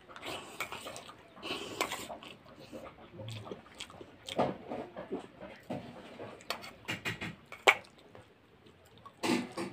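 Close-up eating sounds: wet chewing and slurping of spoonfuls of chiwda (flattened rice), with a metal spoon scraping and clicking against a steel bowl. There is one sharp clink of the spoon on the bowl a little before the eighth second.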